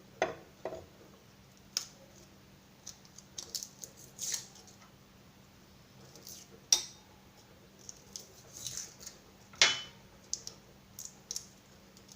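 Garlic cloves being peeled and handled with kitchen utensils: scattered small clicks and scrapes, with two sharper knocks, about halfway through and again about three-quarters of the way in.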